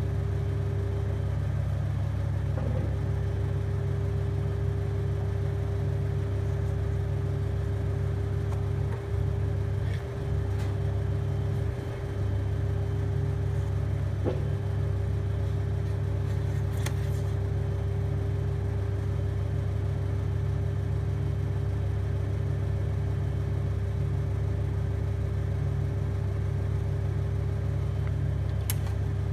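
Steady electrical hum from a TIG welding setup, with a couple of sharp clicks partway through.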